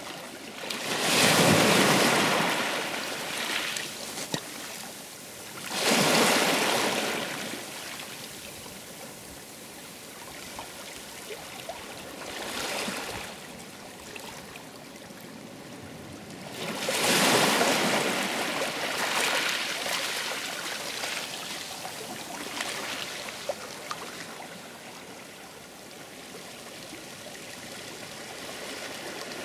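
Sea surf: waves breaking and washing back, the rush swelling loud and dying away again every few seconds.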